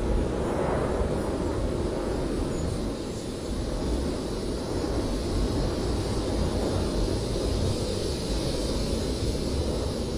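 Blizzard wind blowing in a steady low rumble, with a higher hiss that swells in the second half.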